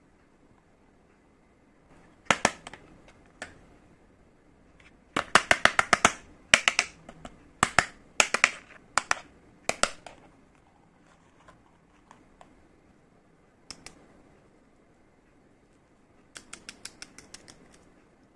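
Small hard plastic toy kitchen pieces clicking and tapping as they are handled and set down. There are scattered single taps and two quick rattling runs of clicks, one about five seconds in and one near the end.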